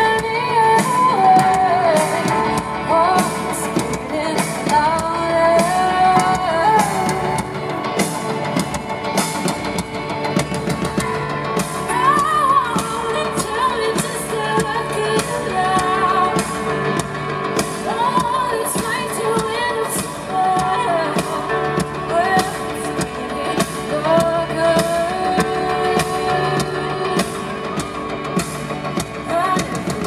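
Live band performance: a woman singing lead into a microphone over drums and guitar, with a steady drum beat.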